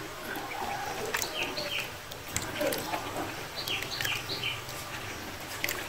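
Ducklings peeping: short, high, falling peeps in little clusters of two or three, with scattered small clicks and splashes from the water.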